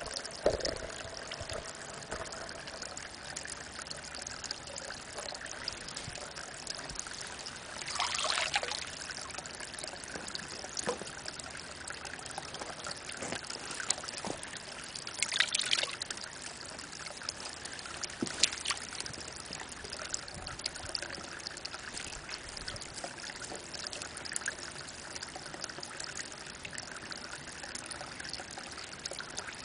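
Spring water trickling from a mossy rock into a pond, a thin stream splashing steadily onto the water's surface. Three brief louder splashing spells come about eight seconds in, again around fifteen seconds, and once more near eighteen seconds.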